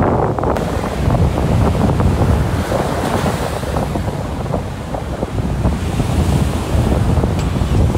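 Wind buffeting the microphone over surf breaking on the beach: a steady rushing noise with a heavy low rumble.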